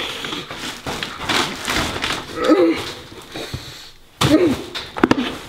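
A man's muffled groans and whimpers through a taped-over mouth as he struggles, with a couple of sharp knocks about five seconds in.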